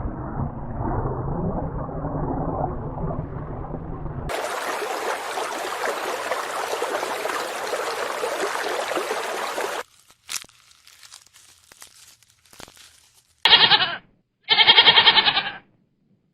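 Two goat bleats near the end, the second longer, after a few faint clicks; these follow about ten seconds of steady rushing noise that is muffled for the first four seconds and brighter afterwards.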